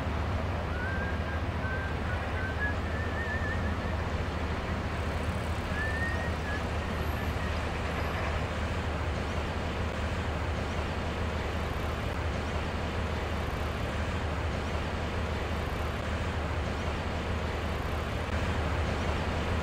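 Steady outdoor background noise, a constant low rumble with hiss, like passing traffic. A few faint warbling whistles show over it in the first several seconds.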